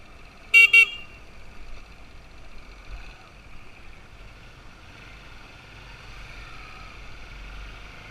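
Two quick horn beeps about half a second in, typical of a small motorcycle's horn, over a dirt bike's engine running steadily along the road.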